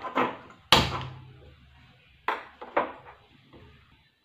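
Gas stove burner lit with a hand-held spark gas lighter: a sharp click about a second in as the burner catches, then two more lighter knocks a little later.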